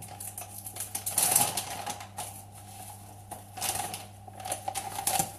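Crinkly rustling and quick clicks of a sachet of powdered meal mix being handled and opened by hand, busiest about a second in and again around four seconds.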